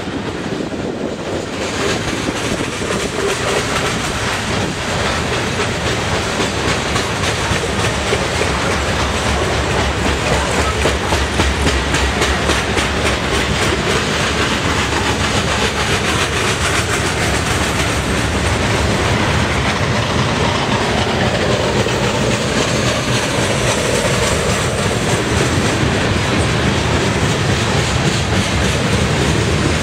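Covered hopper cars of a freight train rolling past close by: a steady rumble of steel wheels on rail with a continuous rapid clickety-clack.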